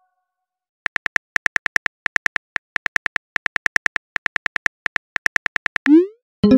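Phone-keyboard typing clicks: a quick, even run of short taps lasting about five seconds as a text message is typed. Then a short rising swoosh as the message sends, and a chime starts at the very end.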